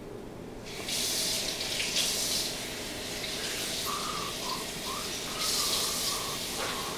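Water running from a kitchen tap, switched on suddenly about a second in and running steadily as a hiss.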